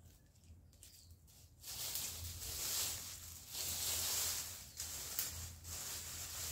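Dry leaves, twigs and brush rustling and scraping across bare ground as they are raked and gathered up, in long strokes that start about a second and a half in.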